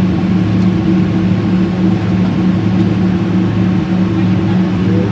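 Airliner cabin noise in flight, heard from a window seat over the wing: the steady drone of the jet engines and rushing air, with a low, even hum.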